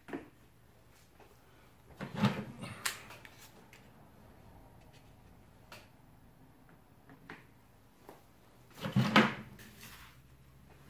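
Black plastic spring clamps being handled and clamped onto a longboard sander: a few light clicks, and two louder bouts of clattering knocks, about two seconds in and near the end.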